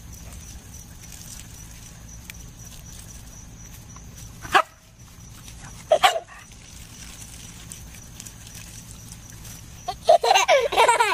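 Small white dog barking twice, single sharp barks about a second and a half apart. Near the end a baby squeals with high-pitched laughter.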